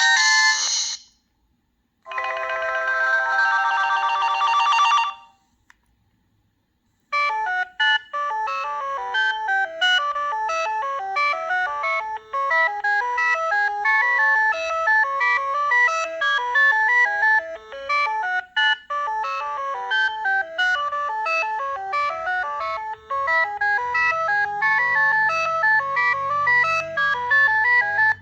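Preloaded ringtones playing from a Sony Ericsson T226 mobile phone: one tone ends in the first second, a short buzzy tone plays from about two to five seconds in, and after a two-second pause a long synthesized melody of quick rising-and-falling note runs plays until it stops abruptly at the end.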